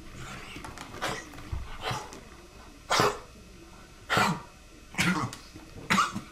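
An animal coughing over and over: about six short coughs, roughly one a second.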